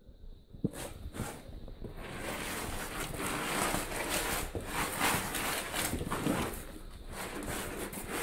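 Scuffing footsteps and rustling on a wet tunnel floor, close to the microphone, starting in earnest about two seconds in after a few light clicks.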